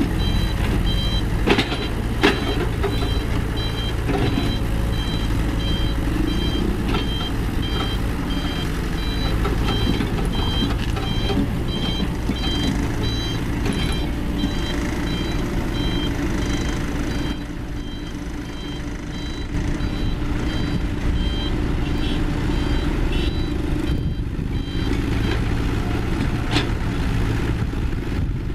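Diesel engine of heavy construction machinery running steadily while its reversing alarm beeps rapidly and repeatedly, stopping a few seconds before the end. Two sharp metallic knocks come within the first few seconds.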